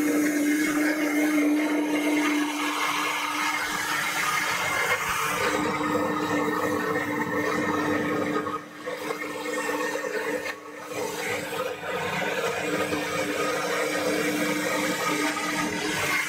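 Countertop blender running at speed, churning peach purée as butter is worked in. Its motor makes a steady whine over the whirl of liquid, with two short dips in loudness about halfway through.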